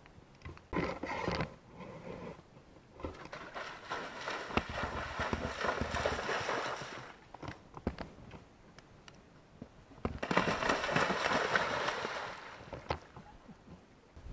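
A horse splashing through the water of a cross-country water jump, in two bouts of a few seconds each.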